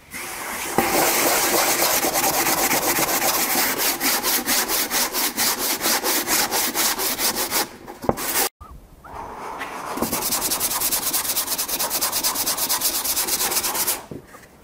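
Coarse-grit sanding block rubbed by hand over acrylic paint on a stretched canvas, in quick back-and-forth scrubbing strokes several times a second. The sanding stops briefly about halfway through, then starts again.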